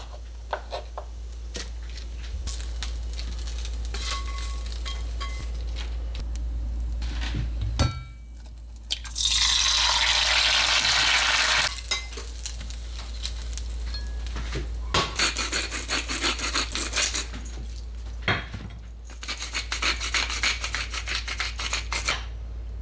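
Kitchen cooking sounds: a knife tapping through tomato onto a wooden chopping board, then a few seconds of loud sizzling from frying in a pan, and later the rapid clicking of a hand-turned pepper grinder. A steady low hum runs underneath.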